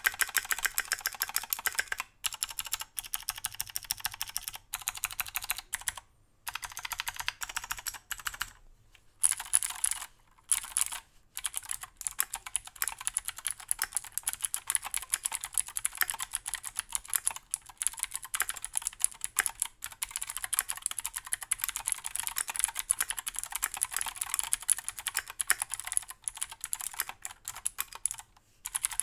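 Typing on a Keychron Q2 aluminium mechanical keyboard fitted with stock Gateron G Pro Blue clicky switches: fast runs of keystrokes broken by a few short pauses. Each click is fairly high and has no resonance.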